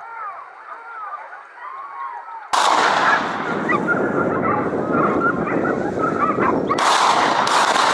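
A pack of hunting dogs baying and yelping, many voices at once. The dogs are faint at first, then much louder and closer after a sudden jump about two and a half seconds in.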